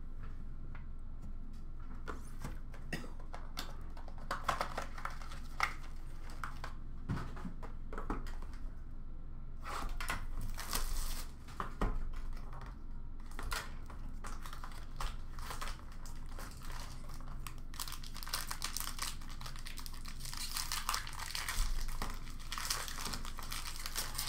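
A cardboard hobby box of Upper Deck Black Diamond hockey cards being handled and opened, with scattered clicks and rustles. Plastic wrap crinkles and tears, most densely in the last few seconds.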